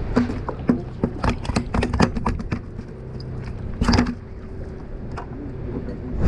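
A quick run of sharp taps and knocks, with one louder knock about four seconds in, as a summer flounder (fluke) is handled on the boat's table and laid against a measuring stick. A steady low engine hum from the fishing boat runs underneath.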